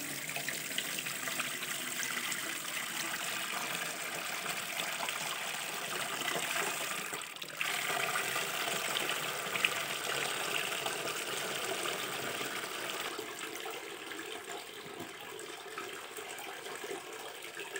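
Churned milk pouring in a steady stream from the neck of a goat-skin butter churn into an aluminium pot, splashing into the liquid already there. The flow dips briefly about seven seconds in, then runs on.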